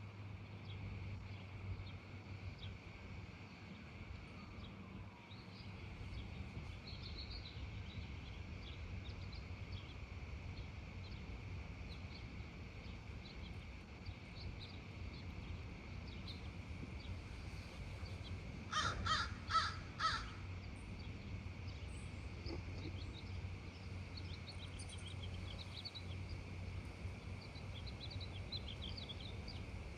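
Outdoor neighbourhood ambience: a bird gives four loud calls in quick succession about two-thirds of the way through. Faint chirping of small birds runs over a steady background hum.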